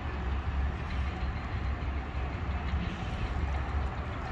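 Parked jet fuel truck's diesel engine idling with a steady low rumble.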